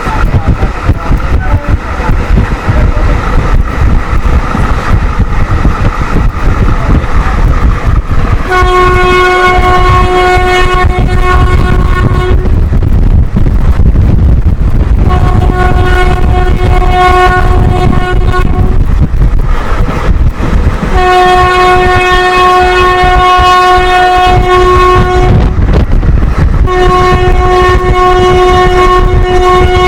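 WAP-4 electric locomotive's twin-tone horn sounding four long blasts of about four seconds each, starting a third of the way in, over the steady rumble of the train running at speed.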